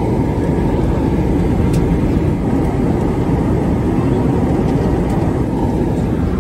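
Steady airliner cabin noise inside a Boeing 737 MAX 8-200 in flight: an even rushing hum of airflow and its CFM LEAP-1B engines, heaviest in the low range.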